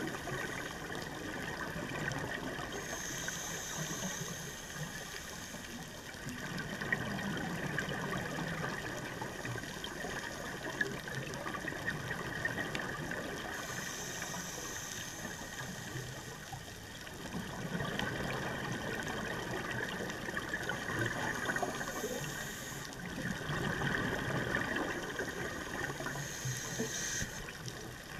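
Scuba diver's regulator breathing, heard underwater: hissing inhalations alternating with bubbly exhalations in a slow, repeating cycle.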